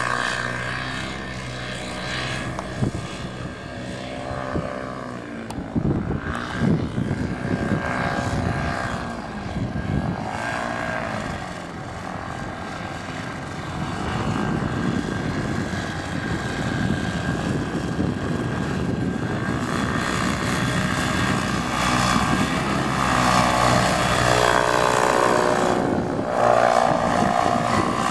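Paramotor engine and propeller droning as the powered paraglider flies low overhead. The pitch rises and falls several times as it passes and changes throttle, and the sound swells loudest near the end.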